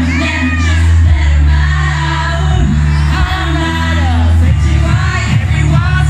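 Loud live Eurodance music through a club PA, with a strong bass line and a woman singing.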